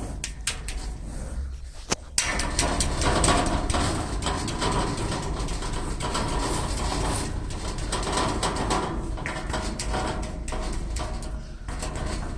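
A few plastic clicks, then about two seconds in a steady rush of water from a tap filling a toy water gun.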